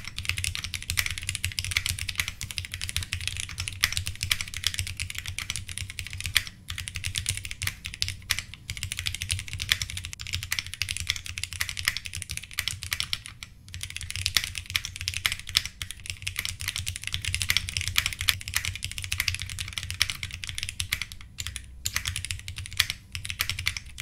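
Steady fast typing on an Akko Monsgeek M1 mechanical keyboard with lubed Akko CS Jelly Black switches in a heavy aluminium case. The keystrokes come as a dense run of clacks, broken by a few short pauses, with no echo from the case, which is damped by foam strips in its base.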